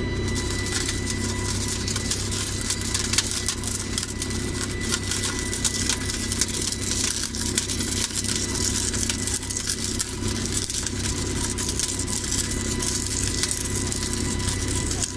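Flash butt rail welding machine at work: a steady engine hum and a thin steady whine under dense, irregular crackling as current arcs between the two rail ends being joined.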